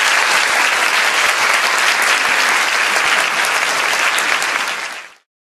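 Audience applauding steadily, fading out and cutting to silence about five seconds in.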